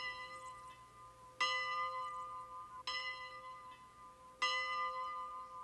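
A single church bell tolling, struck four times about every second and a half at the same pitch, each stroke ringing on and dying away.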